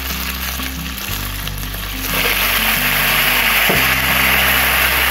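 Beef pieces tipped into a hot pan of oil with green chillies and whole spices, sizzling hard from about two seconds in. Background music with a steady bass line plays throughout.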